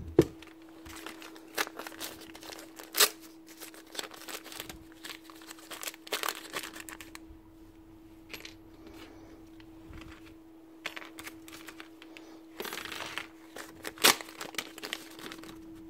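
Plastic parts bags crinkling and being torn open, with small metal parts clicking on a workbench. A louder rustle and tear comes near the end. A steady low hum runs underneath.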